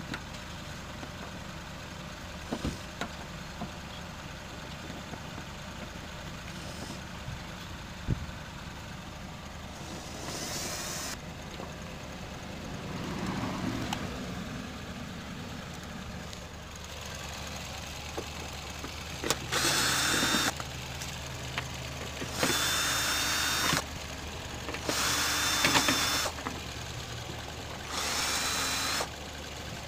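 Cordless drill-driver with a long extension bit running in short bursts of about a second each, four times in the later part, with a steady high whine, as it drives the bumper's fixing bolts.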